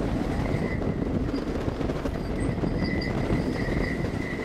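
Wooden roller coaster train running fast through its wooden structure: a dense rattling rumble of the wheels on the track, with a faint high whine coming and going in the second half.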